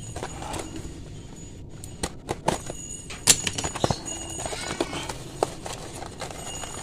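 Paper wrapping of a parcel being handled and pulled open by hand: rustling and crinkling with scattered clicks and taps.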